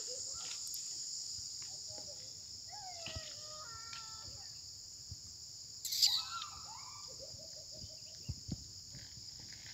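Steady high-pitched drone of insects in the hillside vegetation, with short bird calls and chirps scattered over it and a brief louder rustle about six seconds in.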